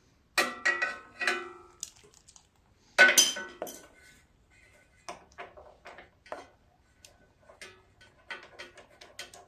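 Metal hand tools clinking and rattling against a small engine while a spark plug is being fitted. First come a few sharp, ringing clinks, the loudest about three seconds in, then a run of lighter, irregular ticks.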